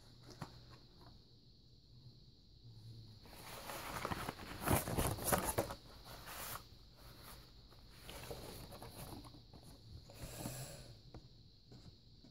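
Rustling and crinkling as a card-game package is handled and opened and the cards are taken out, loudest about four to six seconds in.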